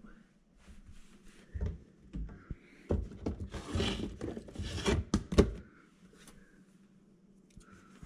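Handling noises while a hand digs a dishwasher soap pod out of a plastic tub: scattered knocks and thumps, rustling and rattling of the plastic tub, then a few sharp clicks about five seconds in.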